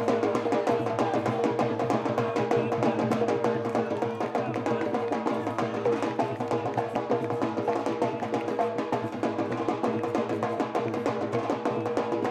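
Siddi dhamal drumming: fast, dense drum strokes in a steady rhythm, with a held tone running under the beat.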